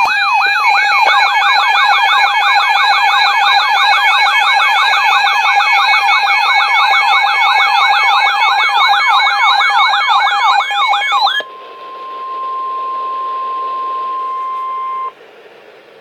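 Emergency alert alarm for a severe thunderstorm warning: a loud electronic siren warbling rapidly up and down, about four sweeps a second, for about eleven seconds. It then switches to one steady, unwavering alert tone that cuts off suddenly after about three and a half seconds.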